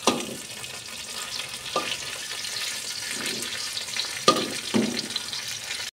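Scallion whites and soaked dried shiitake mushrooms sizzling in a wok as they are stir-fried until fragrant, with a metal ladle scraping the pan a few times.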